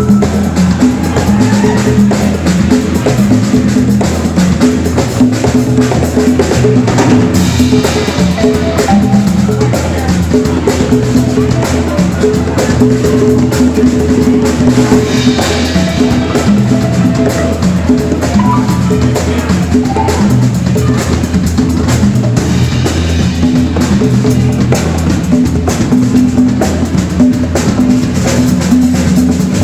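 Live band playing a song at full volume, with a drum kit's bass drum and rimshots driving a steady beat under sustained pitched instruments.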